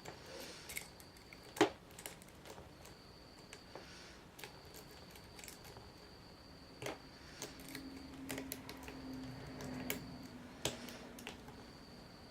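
Lock picks and tension wrench working in the keyway of an ACE 2-inch rekeyable padlock with serrated spool pins: scattered light metallic clicks, one sharper click about a second and a half in.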